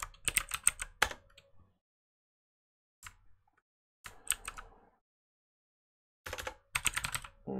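Typing on a computer keyboard: several short bursts of quick keystrokes separated by silent pauses, the last burst starting past the middle and running on.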